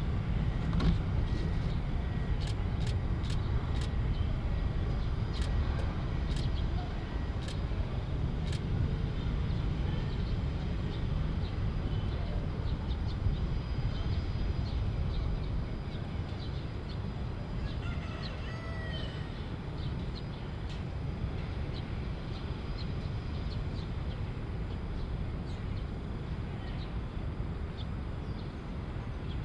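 Boeing 787-10 jet airliner taxiing at idle thrust: a steady low rumble that eases slightly about halfway through. A string of sharp clicks in the first several seconds and a brief chirp about two-thirds in.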